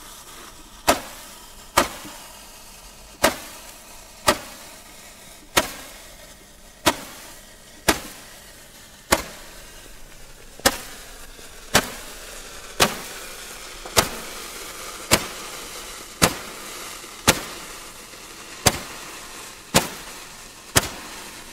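Hand-held 20-shot Roman candle firing its stars one after another: a sharp pop about once a second, with a hiss between the shots.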